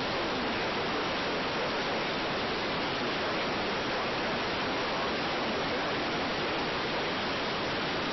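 Steady hiss of radio static, even and unchanging, with no tones or voice.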